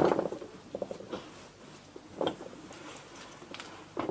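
Faint, scattered clicks and light knocks of metal engine parts being handled on a workbench, the loudest about two seconds in.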